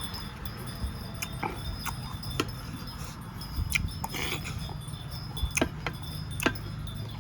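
Eating sounds: chewing with scattered sharp clicks, one short noisy smack about four seconds in, over a steady low hum.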